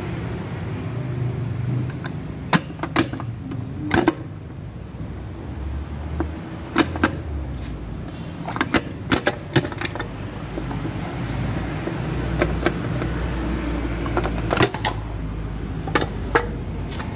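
Sharp, irregular metallic clicks and clanks of tools, bolts and the casing as a Honda scooter's CVT cover is unbolted and lifted off, over a low steady hum.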